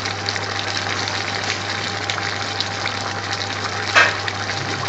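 Large pan of onions, peppers and carrots in oil simmering and bubbling steadily as it cooks down into a base gravy, with fine crackles and spits over a steady low hum. A single sharp click about four seconds in.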